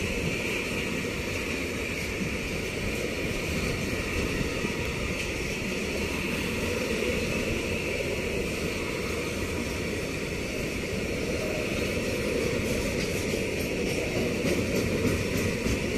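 Container freight train's flat wagons rolling past, a steady rumble of wheels on the rails with a few faint clicks near the end.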